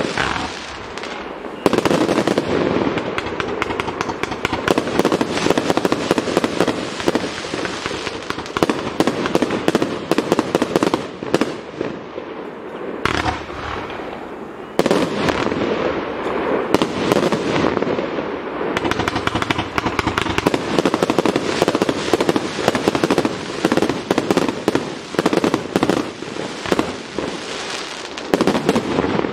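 A 221-shot firework cake (M221 The Godfather) firing in rapid succession, a dense, continuous stream of shots and bursts. It eases off for a few seconds about halfway through, then picks up again sharply.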